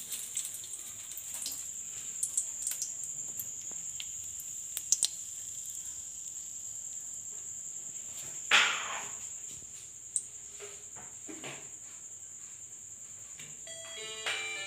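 Crickets trilling steadily at a high pitch, with scattered light clicks and a sharper knock a little past halfway.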